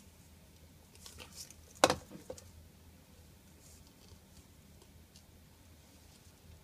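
Hollow plastic treat ball being nosed and rolled over sand by a tenrec, giving light scraping and clicks. There is one sharp plastic knock just before two seconds in.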